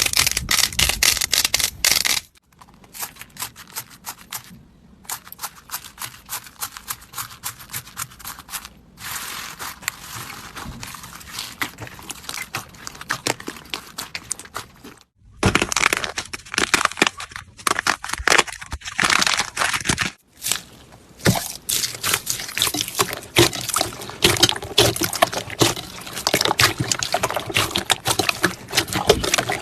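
Slime being squished, poked and stretched by hand, making dense crackling and popping clicks. The sound changes abruptly several times as one short clip cuts to the next.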